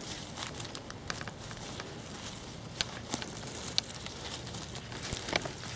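Hands digging in garden soil and tugging at sweet potato roots: scattered crackling, rustling and small clicks, a few sharper ones in the second half.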